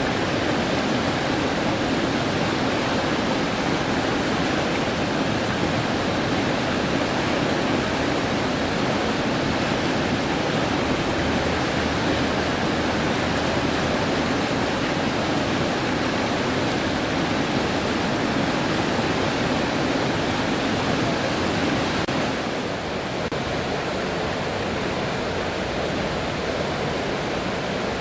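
Steady rush of flowing water, like a waterfall or fast stream, an even noise without breaks. About three-quarters of the way through it drops slightly in level and loses some of its hiss.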